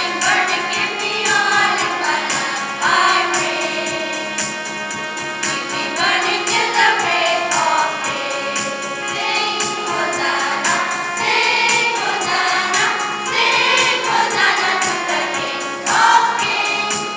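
A school choir singing a hymn together, with long held notes.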